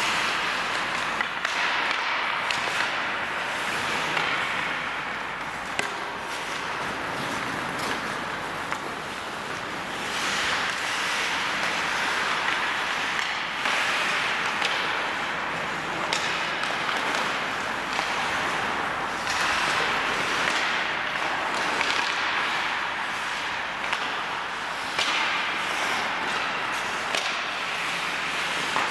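Ice hockey in play: skate blades scraping and hissing on the ice, swelling and fading, with scattered sharp clacks of sticks and puck.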